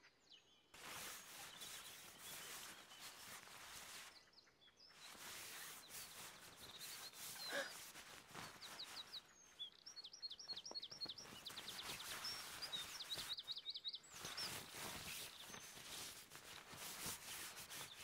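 Faint outdoor ambience: a bird singing a quick run of short high chirps in the middle, over a soft steady hiss.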